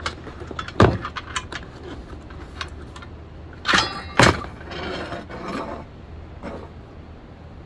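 Unboxing a grab-rail kit: clicks, knocks and rustling as the packaging and parts are handled, with two sharp knocks about one second in and about four seconds in, over a steady low hum.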